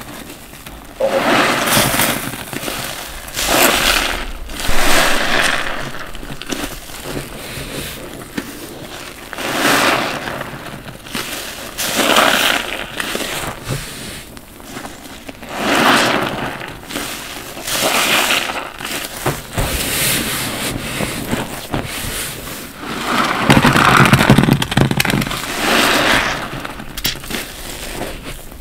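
Foam-soaked bath sponges loaded with dish soap being squeezed by hand, over and over every couple of seconds. Each squeeze gives a wet squelch with crackling, popping lather.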